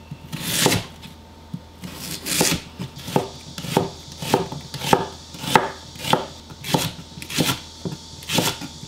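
Chef's knife slicing Korean radish, then onion, then green onion down onto a wooden cutting board: a steady run of single cuts, about one every two-thirds of a second.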